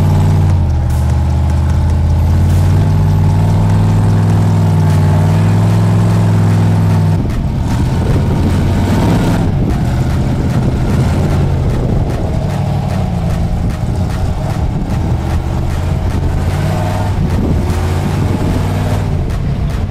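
Off-road Jeep engine held at high revs under load as it crawls up a steep rock ledge. About seven seconds in, the engine note drops lower and turns rougher and noisier.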